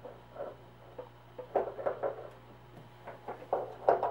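Laser engraving machine switched on: a steady low hum under a string of short, irregular mechanical clicks and knocks that grow busier in the second half.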